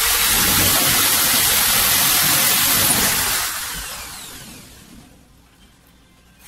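Corded electric drill running at full speed for about three seconds on steel ceiling purlins, then winding down and fading out.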